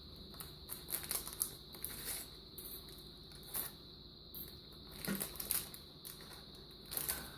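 Handling noise of small clock parts and packaging: irregular light rustles, scratches and clicks, with the loudest clusters about a second in, around five seconds in and near the end. A thin steady high-pitched whine runs underneath.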